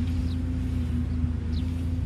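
JCB tracked excavator's diesel engine running steadily: a low rumble with a constant hum.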